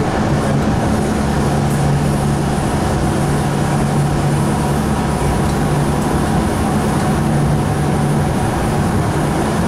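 Sound Transit Link light rail car running, heard from inside the passenger cabin: a steady rolling rumble with a constant low hum.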